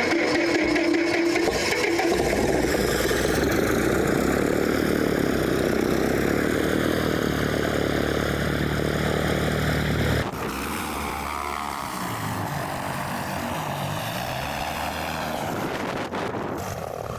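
Light piston-engine propeller airplane running nearby, a steady engine drone that drops suddenly in level about ten seconds in.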